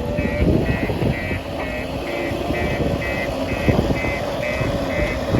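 JCB 3DX backhoe loader's diesel engine running under working load, with a whine that wavers in pitch, and its reversing alarm beeping steadily about twice a second.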